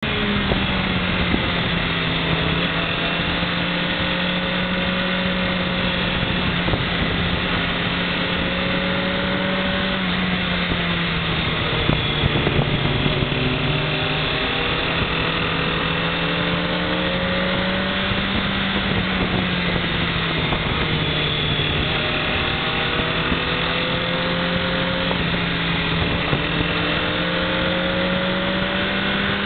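Sport motorcycle engine heard from the rider's seat at road speed, with steady wind and road noise. The engine note rises slowly and drops back several times as the rider accelerates and eases off through the curves, with a brief dip about twelve seconds in.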